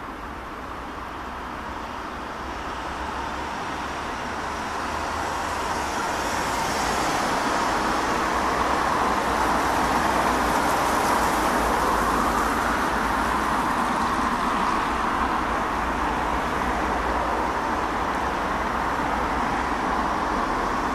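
Distant roar of an Airbus A340-300's four CFM56 jet engines as the airliner climbs overhead. It swells over the first ten seconds or so, then holds, easing off slightly.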